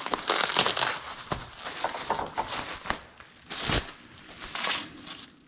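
Plastic bubble wrap rustling and crinkling in irregular bursts as it is pulled off a metal rack-mount part, with a few short knocks.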